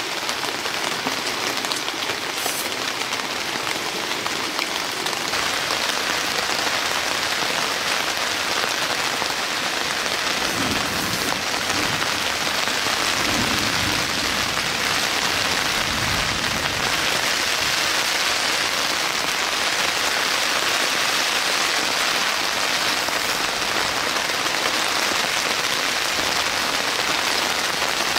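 Steady rain falling, an even hiss throughout, with some low rumbling between about ten and seventeen seconds in.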